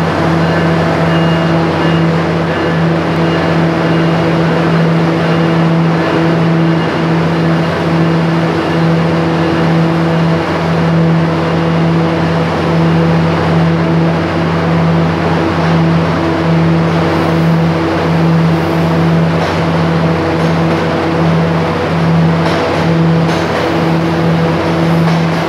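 NJ Transit push-pull commuter train pulling out under ALP-46A electric locomotive power: a loud, steady electric hum and drone with several fixed higher tones. As the Comet coaches roll past, faint clicks of wheels over the rails come in during the second half.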